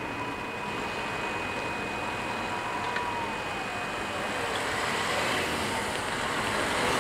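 Level-crossing barrier drives whining as the red-and-white booms rise, the whine falling away about three to four seconds in, with a click about three seconds in. A car then approaches, its tyre and engine noise growing louder near the end.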